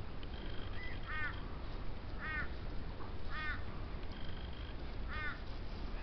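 An animal's short harsh call repeated five times, about once a second, with faint high thin notes between them over a steady low rumble.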